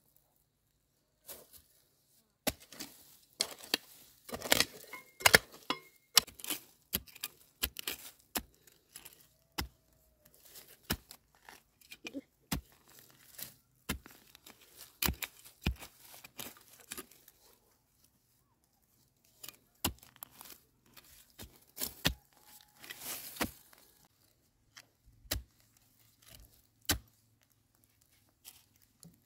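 A narrow-bladed hand digging tool chopping and scraping into dry, crumbly soil: a string of irregular strikes with loose earth and dry grass rustling, pausing for about two seconds a little past the middle.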